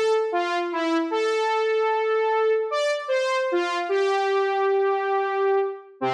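Sampled Moog Minimoog synthesizer (IK Multimedia Syntronik Minimod) playing a slow single-note melody of about nine notes. Each note starts bright and quickly softens as it sustains.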